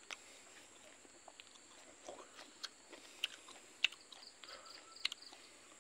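A person chewing a mouthful of cooked silkworms and rice, heard as faint, irregular wet clicks and smacks of the mouth.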